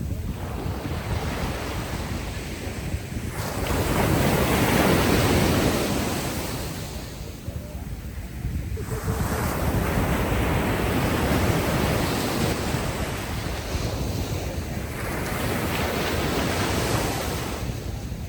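Ocean waves washing ashore on a beach, surging about three times, each swell building and then fading. Wind runs underneath as a steady low rumble.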